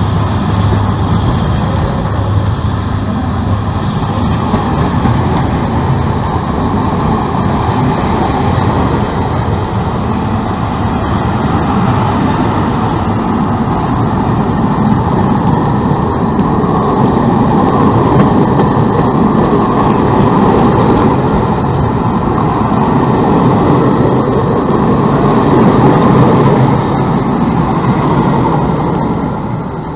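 Passenger train coaches rolling past close by: a steady, loud rumble of wheels on rails that fades away near the end as the last coach clears.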